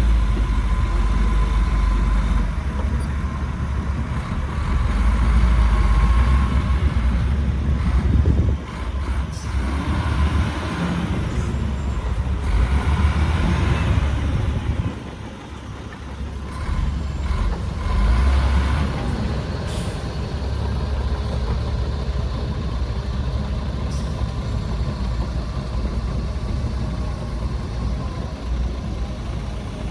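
Heavy diesel engines of dump trucks and a bulldozer running, the low rumble rising and falling as they work, with a short hiss partway through.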